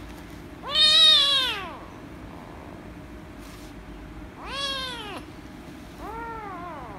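Young kitten meowing three times while being petted, each meow rising and then falling in pitch; the first, about a second in, is the loudest and longest. Loud meows of protest, an angry kitten objecting to being petted.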